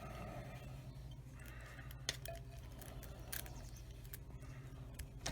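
Faint metallic clicks and scraping of lock picks working inside a small padlock's keyway, with a few sharp ticks about two, three and five seconds in, over a steady low hum.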